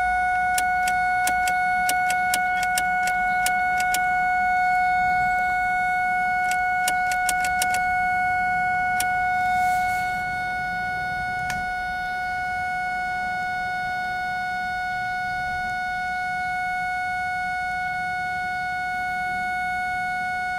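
2001 Ford Focus warning chime sounding as one constant unbroken tone, with sharp irregular clicks over the first eight seconds or so and a few after. The constant chime with the key turned is the symptom of the car's no-start fault, where it acts as if the key is off.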